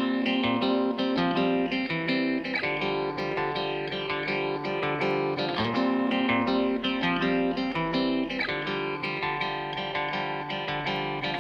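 Background music led by plucked guitar, with a steady rhythm of picked notes.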